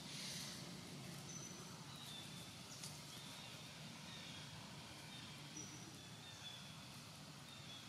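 Quiet forest background with faint, short, high-pitched bird chirps recurring every second or so over a low steady hum.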